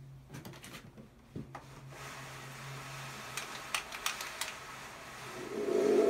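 Light clicks and rustles of handling, then a faint hiss building; about five seconds in, a spring-drum thunder maker (thunder tube) starts a loud, low rumble that becomes the loudest sound.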